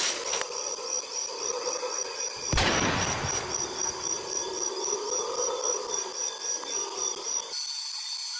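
A single gunshot about two and a half seconds in, sharp with a short ringing tail, over a steady high chirping of about four pulses a second that stops near the end.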